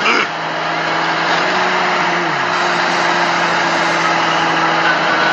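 An engine idling steadily with a low, even hum; a short falling tone slides down about two seconds in.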